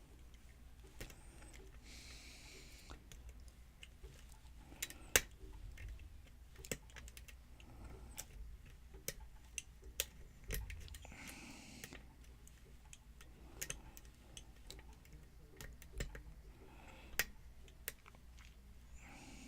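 Irregular small clicks and taps of a lock pick working the pins inside a pin-tumbler lock cylinder.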